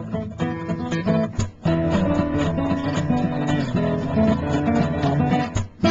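Guitar music: an acoustic guitar strummed and plucked, with two short breaks in the playing.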